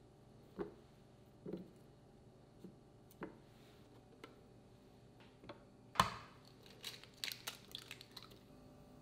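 Soft thuds of butter cubes and grated cheese dropping into a plastic food processor bowl, then a sharp knock of an egg being cracked, followed by the small crackle of the shell being pulled apart.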